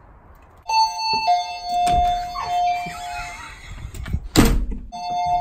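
Two-note doorbell chime, a high note then a lower note ringing on for a couple of seconds, followed by a thump and a short loud rush of noise as the front door is opened.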